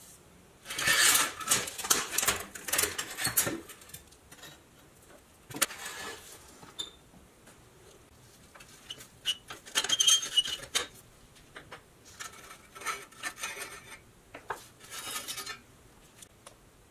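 Rusty pressed-steel toy truck chassis parts being handled and laid down on a wooden bench: thin sheet metal clattering and scraping in four bursts, the first and longest lasting about three seconds.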